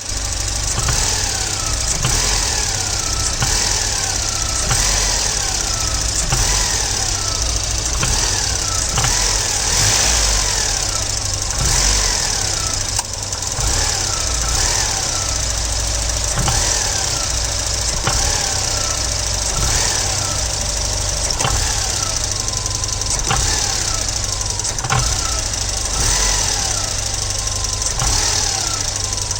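Volvo 940 engine being blipped sharply from idle over and over, about every second and a half, each rev falling back after it. A knock comes with each sharp acceleration.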